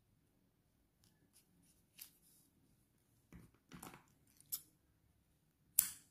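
Hands handling a crocheted yarn piece and a yarn needle on a wooden tabletop: faint rustling with a few short, light clicks and taps, the sharpest near the end.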